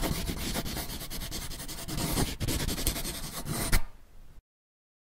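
Pencil scratching on paper, a sketching sound effect: a fast run of scratchy strokes, ending with one sharper stroke and cutting off abruptly about four seconds in.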